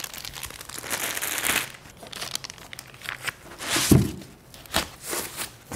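Plastic bags and packing crinkling and rustling as a projector's packaging is pulled out of its cardboard box, with a soft thump about four seconds in.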